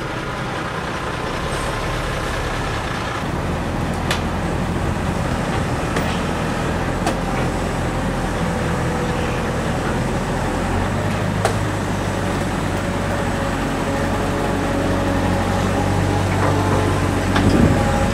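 Heavy diesel engines running steadily: a truck tractor unit with a refrigerated trailer at first, then a wheel loader's engine while it lifts a load. The low engine hum grows stronger partway through, with a few sharp knocks.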